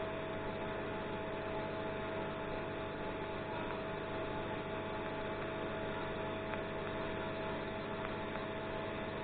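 TIG welding arc burning steadily during a short weld: an even hum with a few fixed tones over a light hiss.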